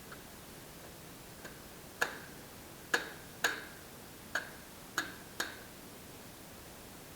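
A series of sharp taps or knocks, about eight, spaced irregularly, each with a brief ringing tail; the loudest come about two to three and a half seconds in.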